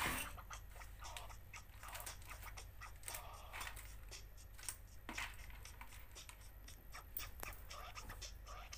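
Faint scattered clicks, taps and scratches of small parts and tools being handled on a workbench, over a steady low hum.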